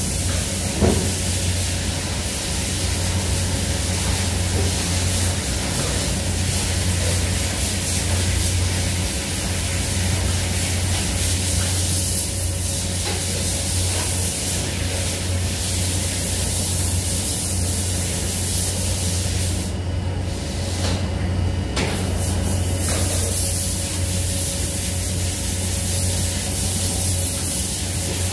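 Steady industrial noise of a screw-plating factory: a constant loud hiss over a low hum of running machinery and ventilation.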